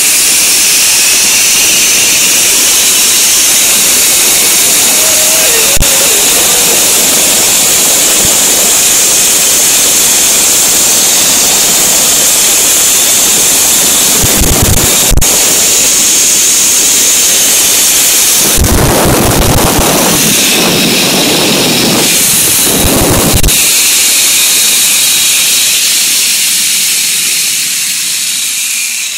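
Zip line trolley pulleys running fast along the cable: a loud, steady high-pitched hiss. Low rumbling buffets of wind on the microphone come in for several seconds past the middle, and the hiss fades near the end.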